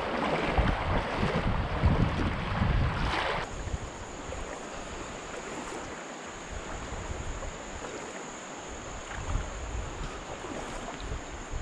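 Wind buffeting the microphone over the steady rush of river water running through shallow riffles. About three and a half seconds in the wind noise cuts off, leaving a quieter, even wash of flowing river with a faint high whine.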